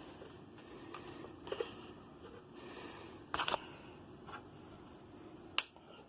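Faint clicks and rustles of hands working at a Macintosh LC's setup just before its first power-up, with a sharp cluster of clicks about three and a half seconds in and one more sharp click near the end.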